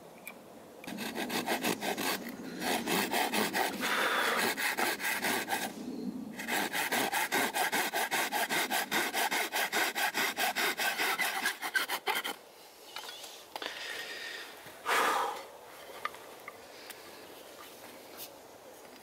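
Folding hand saw cutting into a piece of wood in quick, even strokes, making the two cuts of a V-notch. There are two long runs of sawing with a brief break about six seconds in, the sawing stops about twelve seconds in, and a short scrape follows a few seconds later.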